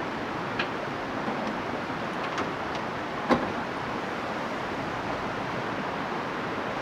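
Metal storage slide under a trailer's rooftop tent platform being unlatched and pulled out: a few light clicks and one sharp clack about three seconds in, over a steady wind hiss.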